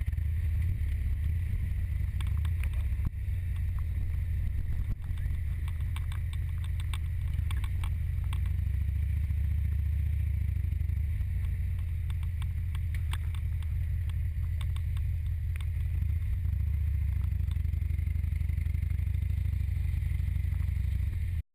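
Motorcycle engine running at low speed, heard as a steady low rumble with scattered light clicks and rattles over it; it cuts off suddenly at the end.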